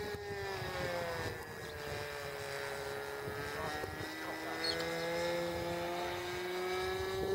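Radio-control model airplane flying overhead, its motor and propeller giving a steady whine whose pitch slides down early on and then slowly climbs as the plane moves and the throttle changes.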